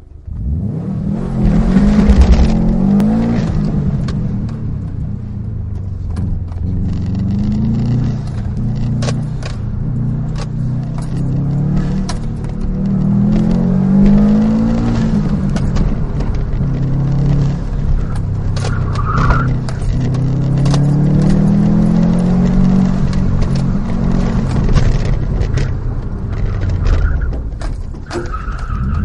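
Subaru WRX STI's turbocharged flat-four engine heard from inside the cabin, launching hard off the line at the start, then revving up and down over and over as the car is driven through an autocross course. Short tire squeals about nineteen seconds in and again near the end.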